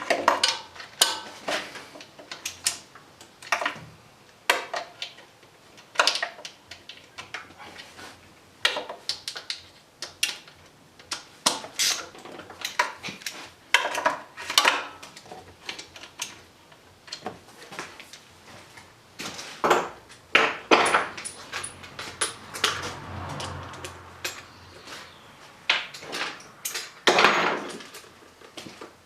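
Irregular metallic clinks, clicks and knocks of a socket wrench and extension being handled against metal engine parts.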